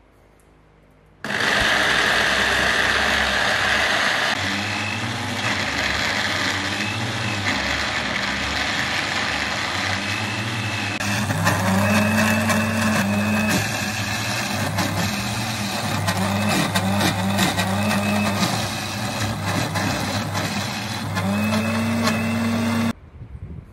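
Electric blender with a small grinding jar running continuously, grinding skin-on roasted peanuts with sugar and olive oil into a thick peanut butter paste. Its motor note wavers as it works through the paste. It starts about a second in and cuts off abruptly near the end.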